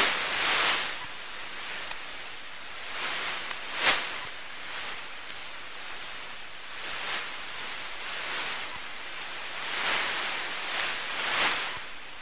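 Shortwave receiver hissing with static on a frequency left empty after the broadcaster signed off, the noise swelling and fading every few seconds under a steady high-pitched whistle. A sharp crackle comes about four seconds in.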